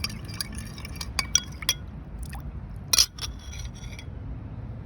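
Glassware clinking: several light chinks with a short ring, then a louder clink about three seconds in, over a low steady background rumble.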